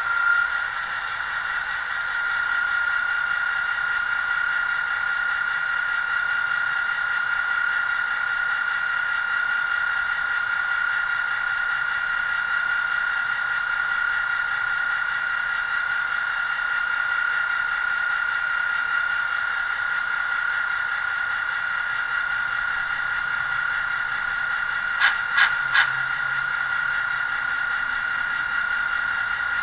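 ESU LokSound sound decoder in an HO scale WAGR L class model locomotive playing a diesel engine idling through the model's small speaker: a steady hum of high tones with hiss and no deep rumble. About 25 seconds in, three quick clicks.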